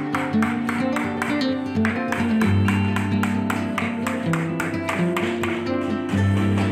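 Background music led by a plucked or strummed guitar, with held bass notes under a quick, even beat of about four strokes a second.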